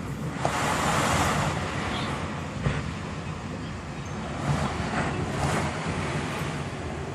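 Strong typhoon wind gusting, buffeting the smartphone's microphone, with a gust swelling about a second in. A few brief knocks sound partway through.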